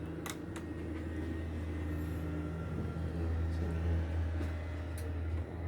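Steady low drone of a boat's running machinery heard inside the cabin, with a few faint clicks.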